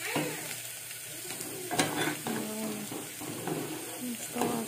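A steel spoon stirring tomato amti in a steel pot, scraping and giving a few sharp clinks against the pot, over the sizzle of the curry simmering on a low flame.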